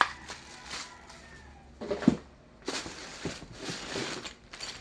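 Chainsaw parts and packaging being handled: scattered clicks and knocks of hard plastic and metal, with a louder knock about two seconds in.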